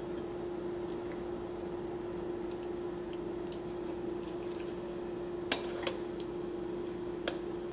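Soft, wet sounds of a creamy pasta mixture sliding from a pan into a glass baking dish as tongs push it out. A few sharp clicks of the tongs and pan against the dish come about five and a half, six and seven seconds in, over a steady hum.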